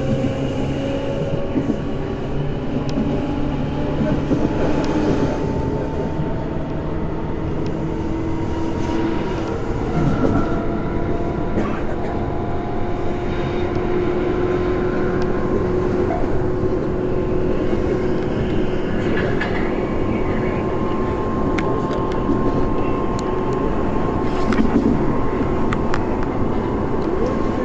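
Onboard running sound of a Tobu electric commuter train: a steady rumble of wheels on rail under a traction-motor and gear whine, with a few sharp rail clicks. The whine's pitch rises slowly through the second half as the train picks up speed.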